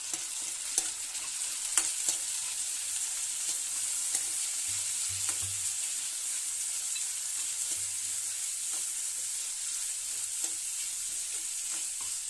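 Chopped vegetables and tomatoes sizzling steadily in mustard oil in a steel kadhai while being stirred with a steel spoon, which clicks and scrapes against the pan now and then.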